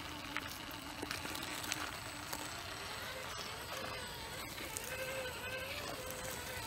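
Traxxas TRX-4 Bronco RC crawler's electric motor and drivetrain whining as it crawls over rock, the pitch wavering with the throttle and climbing higher about halfway through. Scattered sharp clicks of tyres and loose stones on the rock.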